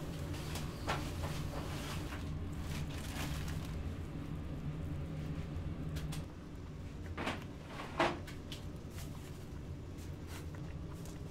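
Work-space handling sounds: scattered knocks and clatters, the sharpest a second apart about seven and eight seconds in, over a steady low machine hum that drops out about six seconds in.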